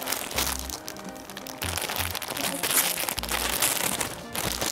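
Clear plastic packaging crinkling and crackling in bursts as it is pulled open by hand, over background music with a repeating bass line.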